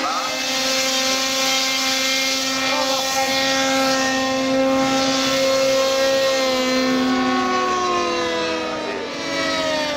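Engines of several radio-controlled model warplanes flying at once, a steady buzz of overlapping tones that each slowly rise and fall in pitch as the planes pass.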